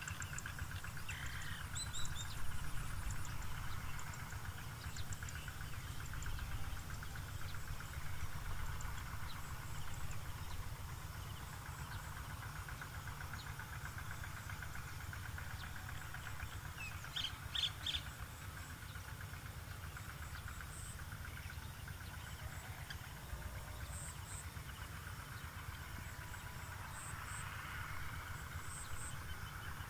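Rural outdoor ambience: scattered bird chirps over a steady low rumble, with a short burst of brighter chirps about halfway through and short high calls in the last few seconds.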